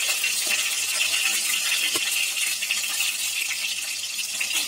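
Chopped garlic sizzling in hot oil in a stainless steel kadai, a steady crackle, with a light tap about two seconds in.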